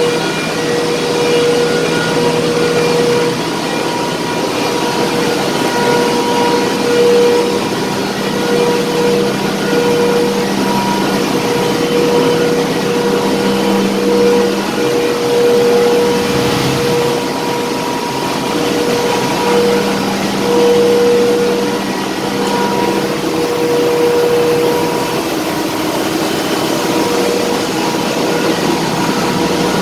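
Loud, steady machinery hum in a ship's engine room, with several steady tones that swell and fade a little over a constant rushing noise.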